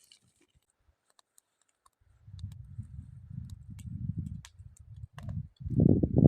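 Campfire crackling with sparse sharp pops. From about two seconds in, wind buffets the microphone with a low rumble that gets much louder near the end.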